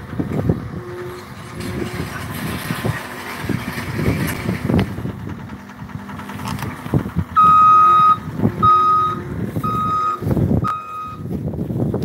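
John Deere skid steer running, its backup alarm beeping four times, about once a second, starting a little past halfway through as the loader reverses. Under it, a low rumble of the machine and gusty wind on the microphone.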